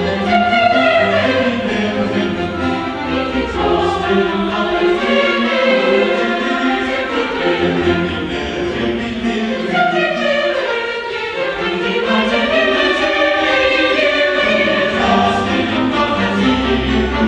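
Choral music with orchestra: a choir singing over orchestral accompaniment, continuous and steady in level.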